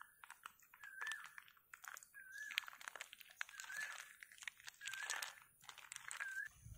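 Thick yogurt poured over raw chicken pieces in a steel bowl, with faint crackling and soft wet splatting. A bird repeats a short whistled note about every second and a half.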